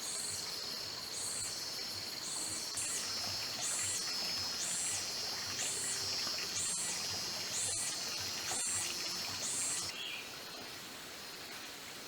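Insects calling: a steady high trill with a second, pulsing call repeating about once a second over it, both stopping about ten seconds in.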